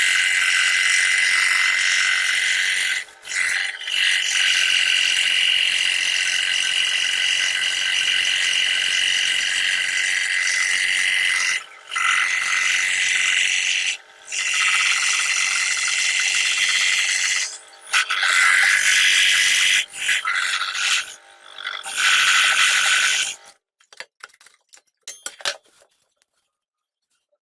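Scroll saw running and cutting plywood, a steady high-pitched buzz with several brief breaks. It stops suddenly near the end, leaving a few faint clicks.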